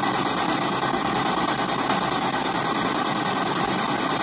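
Spirit box radio sweeping through stations, playing a steady, loud hiss of radio static through a portable JBL speaker.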